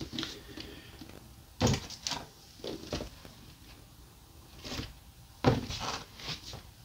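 Cardboard toy boxes and packaging being handled and shifted in a plastic storage tote: scattered knocks and rustles, the loudest about a second and a half in and again near the end.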